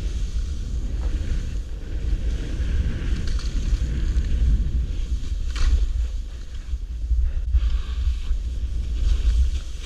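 Wind buffeting an action camera's microphone during a ski descent, a steady low rumble, with the hiss of skis cutting through wet, heavy snow rising and falling over it.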